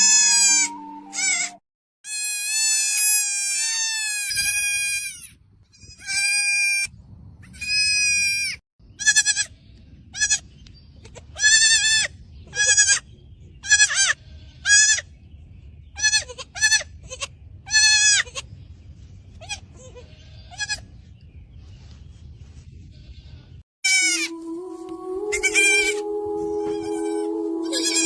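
Goat kids bleating: many short, high-pitched bleats, some drawn out and wavering, coming about once a second through the middle. Music with steady held notes comes in under the bleats near the end.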